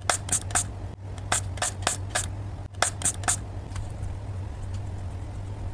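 Hand spray bottle spritzing a mist of water, about ten short hissing squirts in three quick groups, over a steady low hum.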